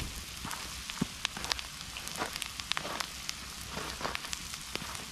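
Onions and mushrooms sizzling in a pan set on a wood campfire, with the fire crackling and popping irregularly over a steady hiss.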